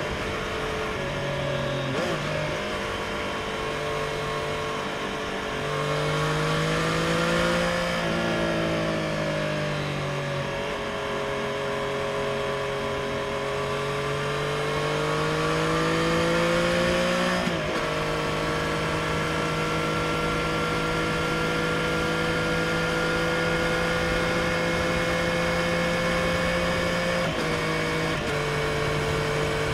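Triumph Street Triple RS inline three-cylinder engine through its stock exhaust, heard onboard while riding. The revs rise and fall, with brief breaks for gear changes about two seconds in, around the middle and near the end. Between them it runs at a steady cruise, with wind noise over the top.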